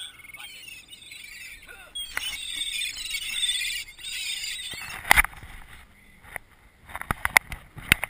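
Gulls calling, their cries thickening into a dense chorus about two seconds in. From about five seconds on, a series of sharp knocks and bumps.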